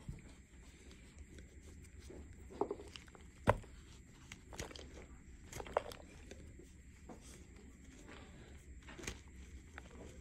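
Hands squeezing and crushing a chunk of gym chalk and cornstarch paste mixed with glitter: soft, scattered crunches and crumbling, the sharpest about three and a half seconds in.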